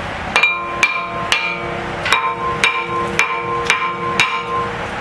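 Hammer blows on steel driving at a seized brake rotor retaining screw: eight sharp metallic strikes, about two a second with a brief pause after the third, each leaving a clear ringing tone.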